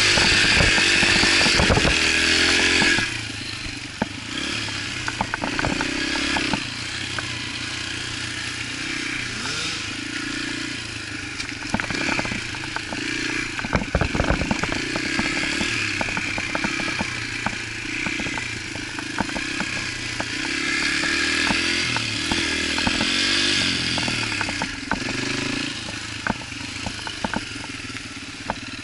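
Yamaha TT-R125 dirt bike's single-cylinder four-stroke engine under the rider, running at high revs for the first three seconds, then dropping back suddenly and rising and falling with the throttle. Many sharp clattering knocks come from the bike over rough ground.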